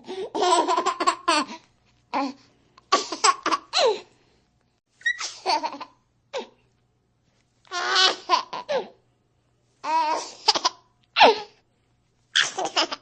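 A baby's laughter in repeated short fits of giggling, about eight bursts with brief pauses between them.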